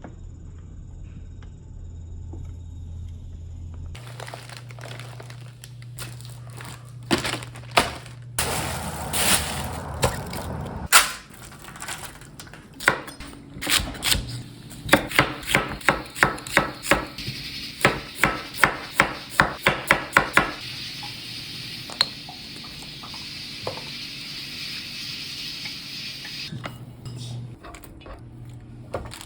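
Kitchen clatter of dishes and utensils, then a run of evenly spaced knife chops on a cutting board, about two or three a second.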